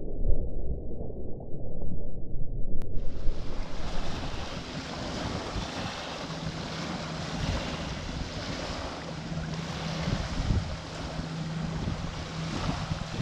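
Muffled low rumble of wind and choppy water on the microphone. About three seconds in it cuts sharply to small waves washing onto a pebble beach, with wind noise. A steady low hum sits under the surf in the second half.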